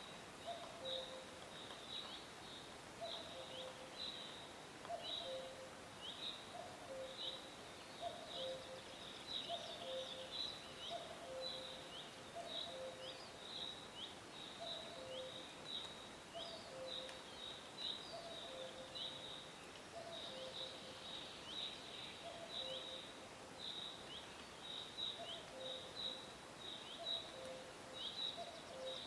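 Outdoor animal calls: a short high chirp that drops in pitch, repeated about twice a second, over a lower two-note call (high note then low note) repeated about once a second.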